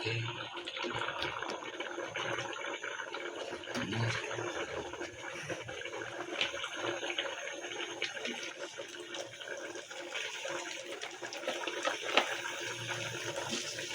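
Salted fish frying in hot oil: a steady sizzle with dense crackling and popping.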